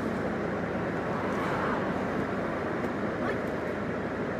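Steady street and vehicle noise, with faint voices in the background.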